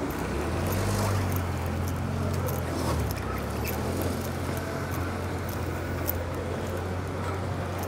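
Street traffic: a motor vehicle running close by, a steady low hum that sets in about half a second in and holds, with faint sharp clicks above it.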